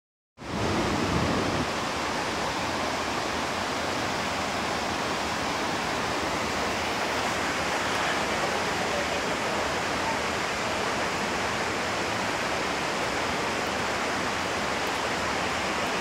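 Steady, even rush of water from a waterfall, a constant hiss of falling and rushing water with no breaks.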